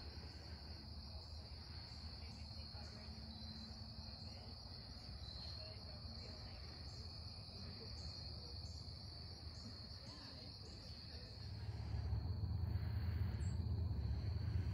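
Evening insect chorus: a steady high trill with evenly pulsed chirping over it, about two pulses a second, which stops about eleven seconds in. Near the end a low rumble comes up and becomes the loudest sound.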